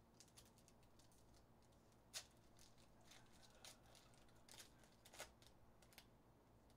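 Faint crinkling and tearing of a foil trading-card pack wrapper (Skybox Metal Universe Champions) being pulled open by hand: a scatter of small crackles, the sharpest about two seconds in.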